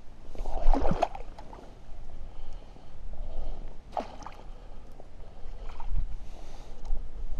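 A freshly landed trout thrashing in a landing net in shallow water, splashing in short bursts about a second in and again around four seconds in.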